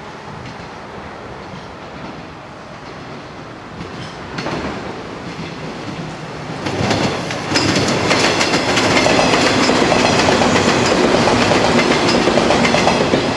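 Electric multiple unit (Okayama depot set B16) approaching and passing close by, its wheels clattering rhythmically over the rail joints. It grows louder about four seconds in and is loud from about seven seconds on.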